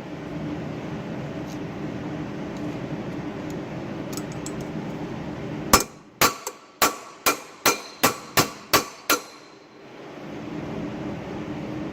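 Nine quick hammer blows on a steel fitting, each with a short metallic ring, coming a little more than two a second starting about halfway in. A steady low hum runs under the first half and returns after the blows.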